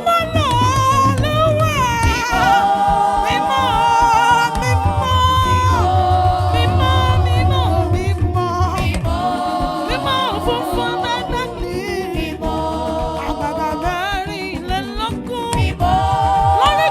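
Gospel praise music: sung voices holding long wavering notes with vibrato over a low, sustained bass.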